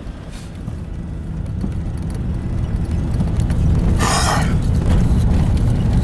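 A vehicle's engine running with a steady low rumble that grows gradually louder, and a short hiss about four seconds in.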